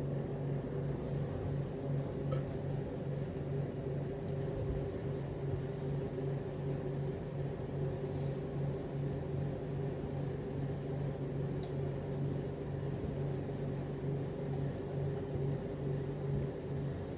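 A steady low mechanical hum, holding one even pitch throughout, with no burp or voice over it.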